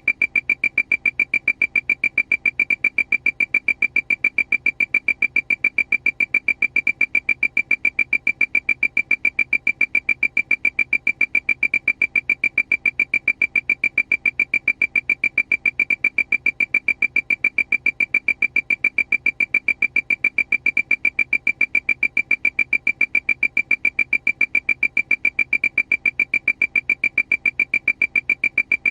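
Aircraft cockpit warning alarm: a high-pitched beep repeating rapidly and evenly, several times a second, without change.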